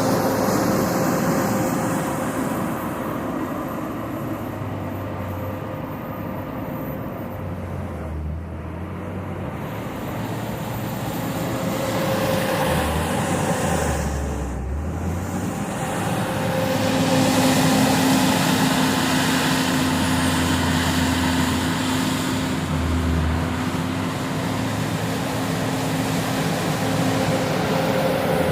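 JCB 426ZX wheel loader's diesel engine working, its pitch and loudness rising and falling with the load. A steady whine joins in a little past halfway.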